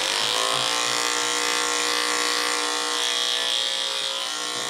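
Small cordless electric pet grooming tool switched on: its motor spins up, rising briefly in pitch, then runs with a steady hum.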